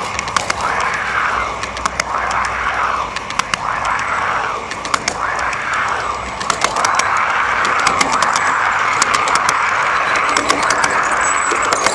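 G-scale model freight train rolling past close by: a steady rolling rattle of the cars' wheels on the track that swells and fades about once a second, with scattered sharp clicks as the wheels cross rail joints.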